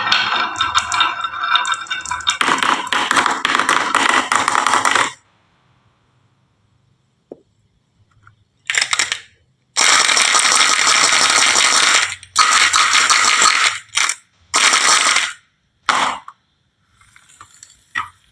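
Marbles rolling and clattering down a marble run track: a long dense rattle that stops about five seconds in, then after a pause several shorter bursts of clatter with brief gaps between them.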